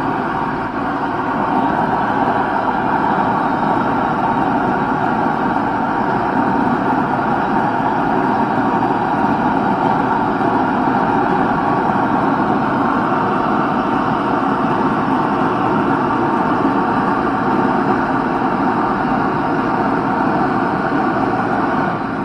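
Backyard forge running, a loud steady noise that holds unbroken and even throughout.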